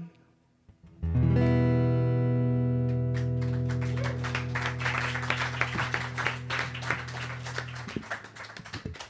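Acoustic guitar and keyboard strike a final chord about a second in and let it ring out, fading slowly. About three seconds in, audience applause builds up over it.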